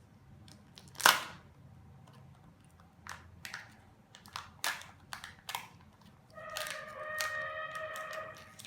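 Plastic packaging of a Kinder Joy egg being handled and opened: one sharp crack about a second in, then a series of clicks and rustles. Near the end a steady pitched tone sounds for about two seconds.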